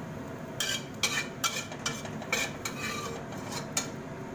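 Metal spatula scraping and clinking against a stainless steel wok and a small ceramic bowl as scrambled egg is scooped out of the wok: about eight sharp, ringing clinks.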